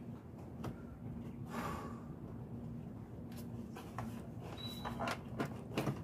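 Faint, scattered clicks and light knocks of hands handling the plastic air box and engine-bay covers, with a short breath or sniff about a second and a half in.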